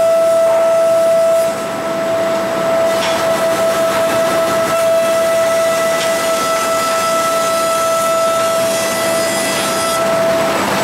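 Planer mill line running: the Northtech high-speed planer and its outfeed chain conveyors give a steady high-pitched whine over constant mechanical noise, with a few light knocks.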